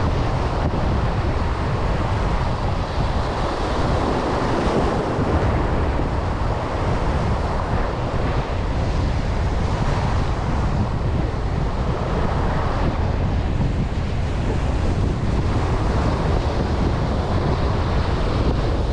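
Wind buffeting the microphone over the wash of surf, which swells and eases every few seconds.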